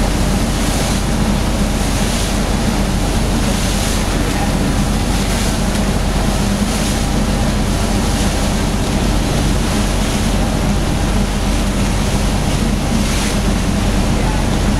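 Pilot boat's engine running with a steady drone under the rush and splash of churned water along its hull, with wind buffeting the microphone.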